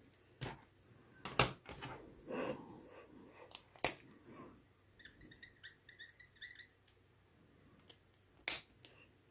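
Irregular clicks and taps of a plastic marker being picked up and handled on a craft mat, with the sharpest click near the end.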